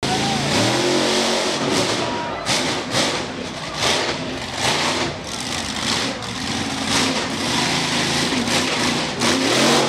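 Monster truck engines revving in repeated bursts, the pitch rising and falling.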